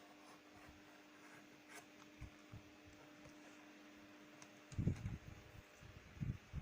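A steady low hum that stops about three-quarters of the way through, followed by a few dull, low thumps.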